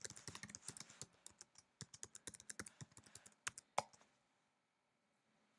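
Faint typing on a computer keyboard: a quick run of key clicks, ending with two sharper clicks just before the fourth second, then the typing stops.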